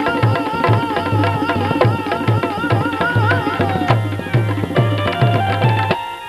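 Instrumental interlude of a Gujarati bhajan: tabla keeps a steady beat under a wavering melodic lead line. Near the end the lead fades and the tabla carries on alone with sharper strokes.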